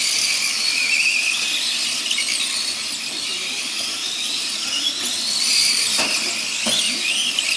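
Several radio-controlled model semi trucks racing on dirt: a high-pitched whine from their motors and drivetrains that rises and falls as they accelerate and slow, with two knocks near the end.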